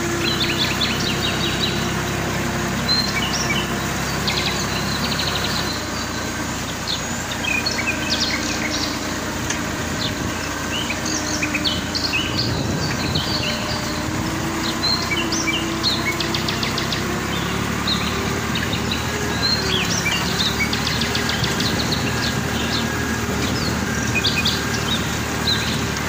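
Many small birds chirping in short, quick calls, over the steady drone of a tractor engine running.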